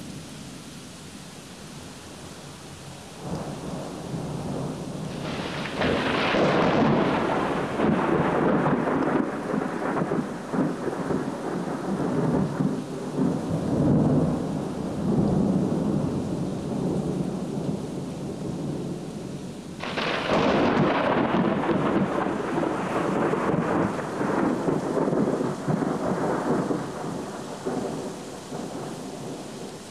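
Two long peals of thunder over steady rain. The first builds from a low rumble about three seconds in and breaks loudly a few seconds later, rolling on for about ten seconds. The second cracks in sharply about twenty seconds in and rumbles away over several seconds.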